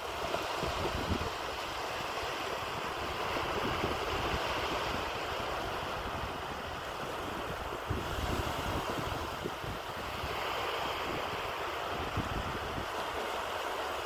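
Calm, small sea waves washing up a sandy beach in a steady, soft wash of surf, with wind gusting on the microphone.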